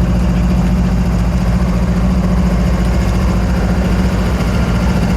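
Diesel locomotive engine idling steadily, with a strong, even low hum.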